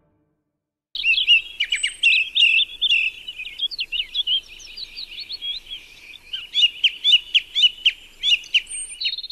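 Song thrush singing, starting about a second in: a fast run of short, sharp phrases, several of them repeated over and over.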